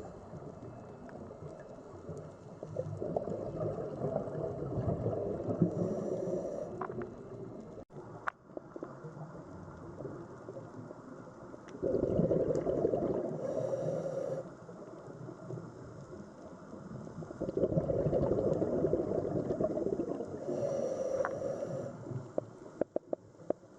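Sea water rushing and surging in three slow swells over a steady low wash, with a few small clicks near the end.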